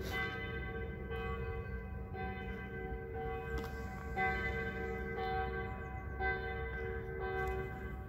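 Church bells ringing, struck again roughly once a second, each stroke's tones hanging on and overlapping the next.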